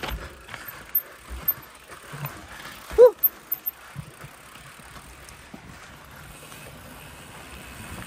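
Mountain bike riding over a rough dirt trail: tyre noise with scattered knocks and rattles, and one short, loud pitched sound about three seconds in.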